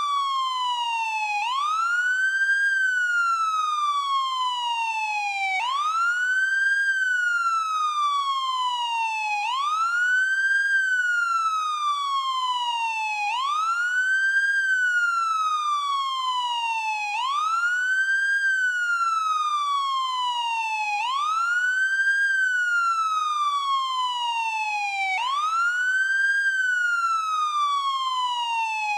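American police car siren sounding its electronic wail. The pitch climbs quickly, then falls slowly, and the cycle repeats about every four seconds.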